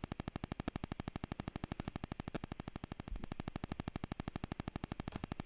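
Electrical interference on the recording: a steady, rapid, even clicking buzz of about ten ticks a second, with a few faint handling noises now and then.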